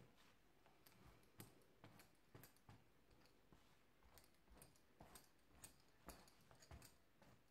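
Near silence broken by faint, scattered light clicks and taps, about one or two a second: clear stamps being handled and an ink brayer rolled over them.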